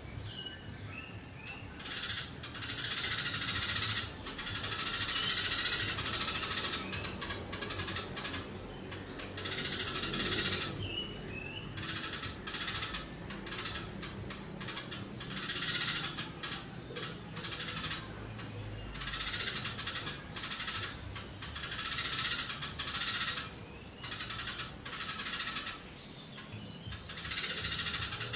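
Eurasian tree sparrow giving long, rapid-fire bursts of chirps, each run lasting one to a few seconds, with short breaks between them.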